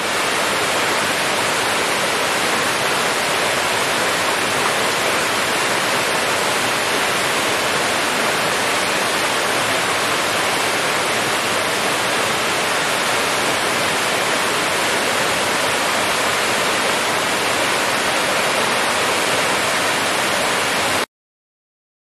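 Waterfall: heavy streams of water plunging past a rock make a loud, steady, even rush that cuts off suddenly near the end.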